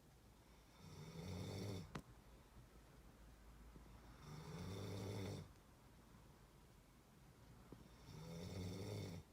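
A person snoring: three snores, one about every three and a half seconds, each a low buzz lasting about a second. A sharp click follows right after the first.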